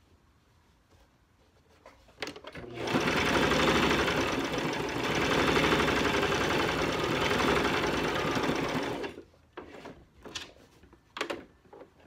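Brother electric sewing machine running steadily for about six seconds as it stitches through cloth. It starts about three seconds in and stops near the end. A few light clicks come before and after it.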